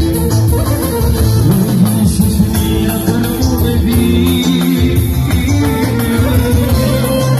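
A man singing through a handheld microphone and PA over amplified electronic keyboard accompaniment with a steady drum-machine beat, a live Albanian song.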